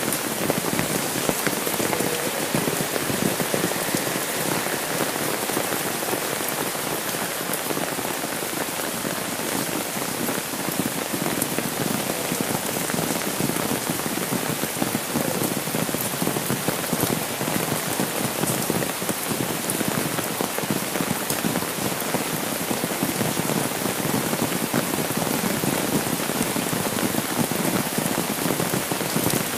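Steady rain falling on an umbrella held overhead and on a wet asphalt road, a dense, even hiss of drops.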